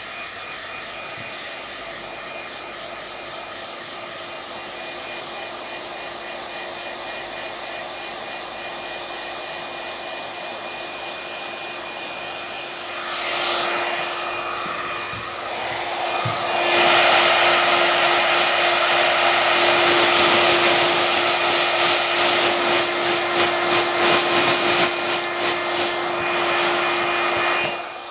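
iTeraCare handheld wand's fan running, a steady hair-dryer-like whir with a faint constant hum. It grows louder about halfway through and stops right at the end.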